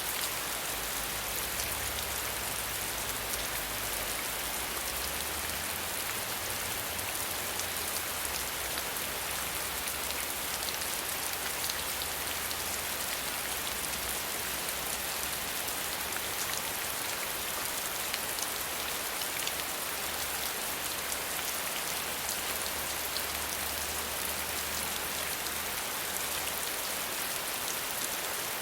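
Steady rain falling, a dense even hiss sprinkled with many small drop ticks.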